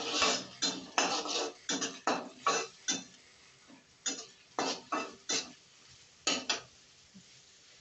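Long metal spatula scraping and clanking against an aluminium kadhai while stirring onions frying in oil. Irregular strokes with a short ring after each, pausing about three seconds in and stopping near the end.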